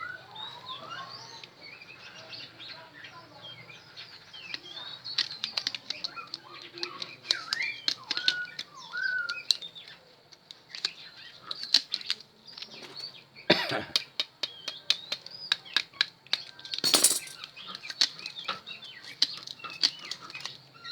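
Small birds chirping throughout, short rising and falling calls, mixed with scattered clicks from hand-winding enamelled copper wire into a drill armature's slots. There are two louder brief rasping strokes, about 13.5 and 17 seconds in.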